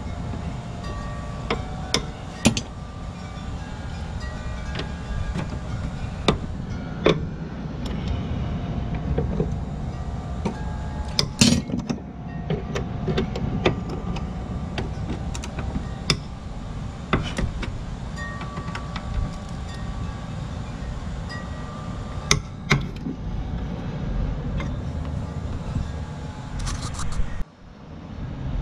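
Socket wrench on a long extension working the bolts of a lawn mower's steel drive cover: scattered sharp metal clicks and clinks, some ringing briefly, over a steady low background hum.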